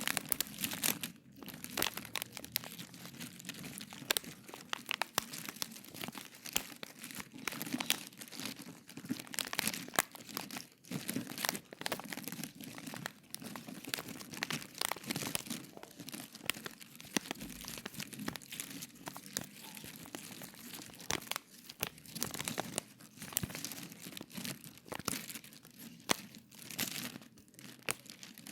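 Foley imitation of a crackling campfire made with objects: a continual crinkling with frequent sharp crackles and pops.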